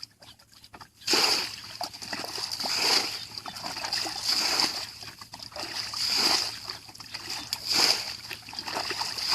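Water splashing and sloshing in irregular surges, roughly one every second or so, starting after about a second of near silence, over a steady high hiss.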